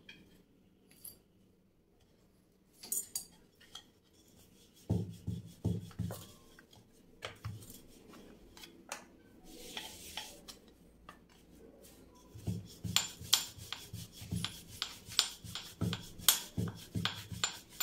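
Rolling pin working lachha paratha dough on a rolling board: irregular knocks and rubbing in short runs, the first about five seconds in and a longer one from about twelve seconds, with sharp clicks getting denser toward the end.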